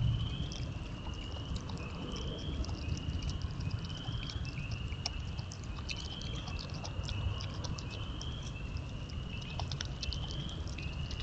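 Virginia opossum chewing and crunching seed close to the microphone, a rapid irregular run of sharp clicks. Behind it, a short rising chirp repeats about once a second.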